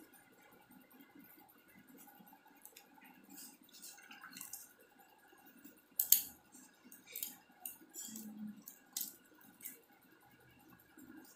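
Light, sharp clinks and taps of small glass paint pots and a brush as painting supplies are handled. The clinks come in a run of about half a dozen, starting about six seconds in, and the first is the loudest.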